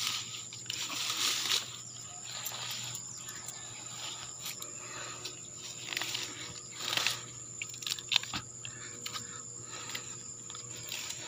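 Grass and leaves rustling as plants are handled and pushed aside, loudest around a second in and again about seven seconds in, with a sharp snap a little after eight seconds. Behind it runs a steady high-pitched insect drone.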